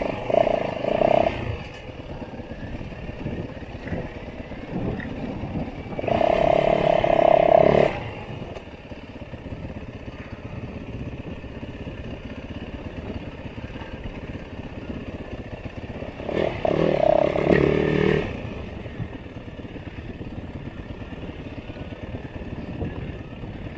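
Motorcycle engine running on a trail ride, opened up louder three times: at the start, at about six seconds in and at about seventeen seconds in, each for a second or two, with a steady lower running sound between.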